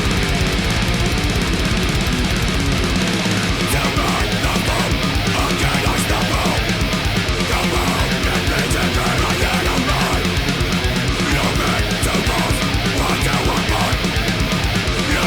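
Grindcore music: heavily distorted guitar riffing over fast, rapid-fire drumming, loud and unrelenting. The riff and drum pattern shift about three seconds in.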